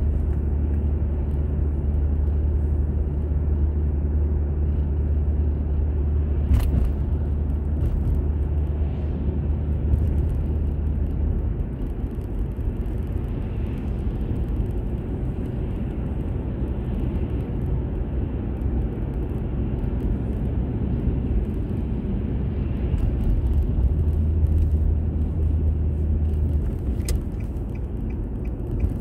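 Car driving on a road, heard through a dashboard camera inside the car: a steady low drone of engine and tyre noise, deepest for the first dozen seconds and again for a few seconds late on. Two sharp clicks and then a short run of light, even ticks come near the end.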